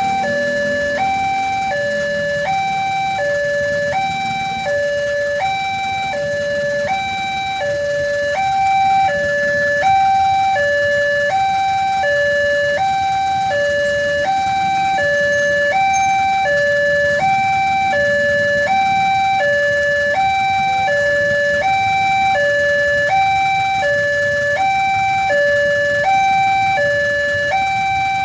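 Railway level-crossing warning alarm sounding a steady two-tone electronic signal, alternating high and low notes about every 0.7 s. It signals that a train is approaching and the crossing gates are closing or closed.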